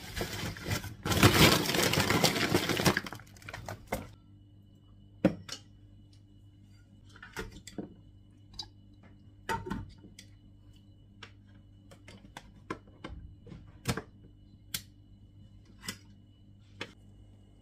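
A plastic rice bag rustling loudly for about three seconds, then scattered clicks and knocks of a metal cooking pot and its lid being handled.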